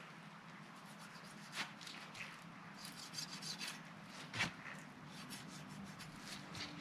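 Light rubbing and scraping handling sounds with scattered soft clicks and one sharper knock about four and a half seconds in, over a faint steady hum.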